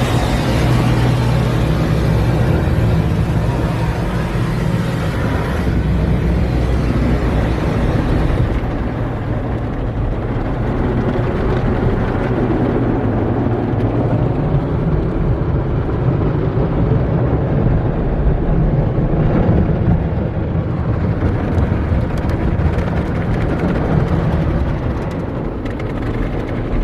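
Tunnel car wash equipment heard from inside the car on the conveyor: a steady, loud wash of brushes and water spray on the car body over a low rumble, the higher hiss easing off about eight seconds in.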